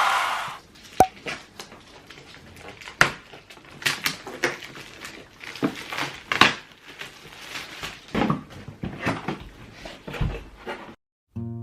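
Scattered light clicks and knocks at irregular intervals, with sharper ones about a second in, around three seconds in and around six seconds in.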